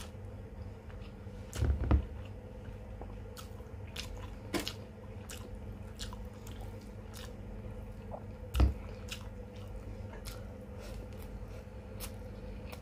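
Close-miked eating of chicken and rice: chewing and biting with many small mouth clicks, over a steady low hum. Two louder thuds stand out, about two seconds in and again past eight seconds.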